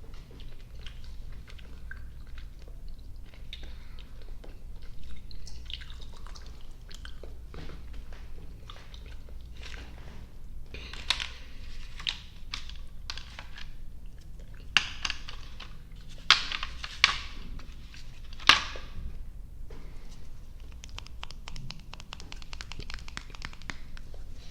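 Close-miked chewing of soft, sticky gummy and marshmallow candy: wet mouth clicks and smacks at an irregular pace, a few sharper ones in the second half, and a fast run of fine crackles near the end.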